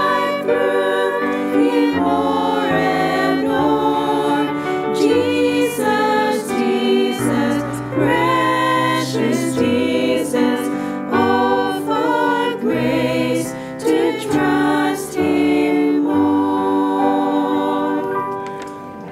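A small group of women singing a hymn in harmony, the voices holding a final chord that fades away near the end.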